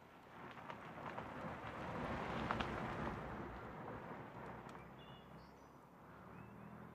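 Pickup truck driving on a dirt road, its engine and tyres crunching on gravel, swelling to a peak about two and a half seconds in and then fading as it passes. A few bird chirps come near the end.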